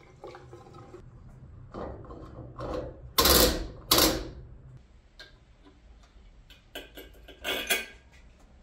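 Fuel filler and plastic gas can being handled at the back of a car after refuelling: scattered clunks and clicks, with two loud knocks about three and four seconds in and a few lighter clicks near the end. The engine is not running.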